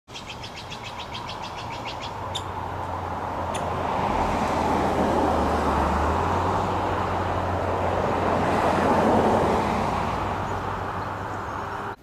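A road vehicle passing: a broad rumble with a low engine hum that swells to a peak mid-way and then fades. At the start, a bird gives a rapid series of high notes, about ten a second for roughly two seconds, and two sharp ticks follow.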